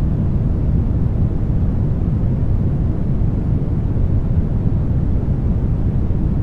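Synthetic brown noise: a steady, deep rushing hiss, heaviest in the bass and thinning toward the top, with no change at all.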